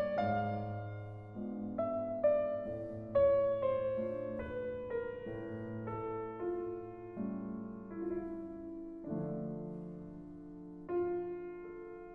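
Slow, gentle solo piano music: soft notes and chords struck one after another and left to ring and fade.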